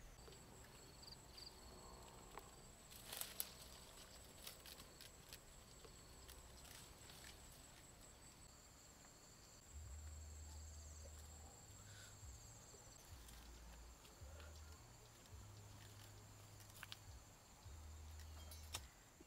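Near silence: a faint, steady high-pitched insect trill, with scattered crackles of dry twigs and grass underfoot, the loudest cluster about three seconds in. A low rumble comes and goes in the second half.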